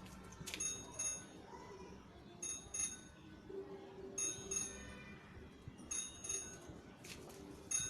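Bangles clinking in short, bright jingles about every one to two seconds as wet hair is rubbed with a towel, over the soft rustle of the towel.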